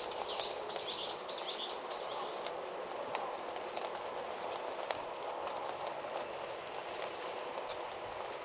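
Steady rain falling, with scattered drops ticking and dripping on nearby surfaces. A bird gives a quick series of about four short high calls in the first two seconds.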